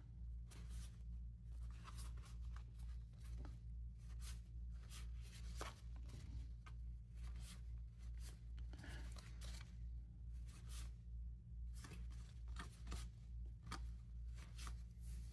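Stack of 1992 Topps football cards being flipped through by hand: soft, irregular flicks and slides of cardboard cards rubbing and snapping against each other.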